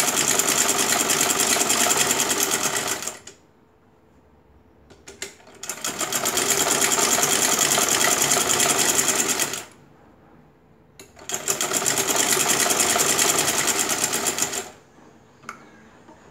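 Old black sewing machine stitching a straight seam through cotton fabric in three runs of a few seconds each, with short pauses and a few small clicks between them. The stitch has been lengthened to sew a gathering line.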